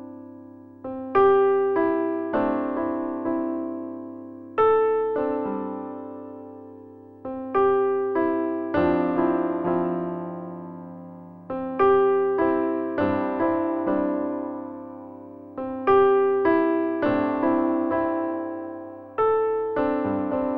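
Background music: a gentle electric piano playing slow chords and single notes that ring out and fade, with a new phrase every few seconds.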